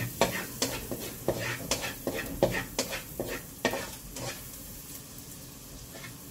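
A utensil stirring and scraping in a frying pan, about two or three strokes a second, over the light sizzle of garlic frying. The stirring stops about four seconds in and the sizzle carries on.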